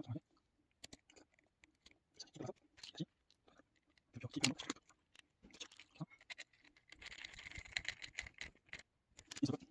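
Small clicks, taps and scrapes of a screwdriver and small computer parts being handled, with a longer scratchy rasp around seven to nine seconds in.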